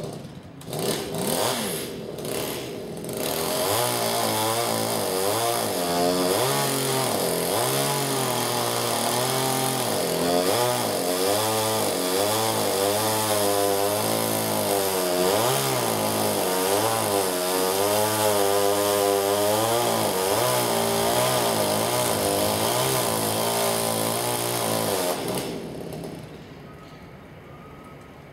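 Chainsaw cutting into Araucaria (monkey puzzle) wood. It gives a few short revs, then runs at high revs for about twenty seconds, its pitch dipping and rising as the chain bites under load. It stops a few seconds before the end.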